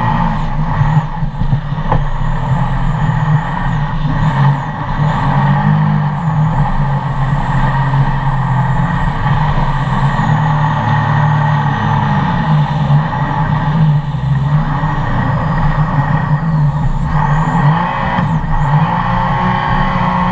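Supercharged engine of a jet boat running hard through shallow water, its pitch wavering up and down with the throttle over a steady rush of water and wind. A faint high whine rises and falls with it.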